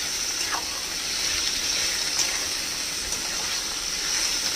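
Minced mutton and sliced onions sizzling steadily in hot mustard oil in a steel kadai, stirred and turned with a metal spatula: the raw mince being seared and browned (kasha).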